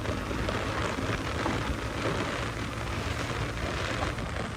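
TVS Ronin 225's single-cylinder engine running steadily while the motorcycle is ridden, with road and wind noise rushing over the microphone.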